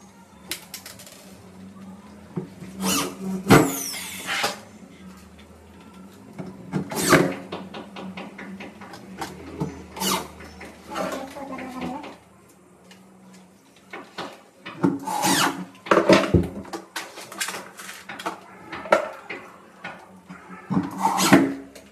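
Handheld electric drill running in repeated short bursts against the wooden panel of a wardrobe, fitting a pull-down wardrobe lift's mounting bracket, its motor pitch sweeping as it speeds up and slows. Between bursts come sharp clicks and knocks of the parts and tool being handled, loudest about halfway through.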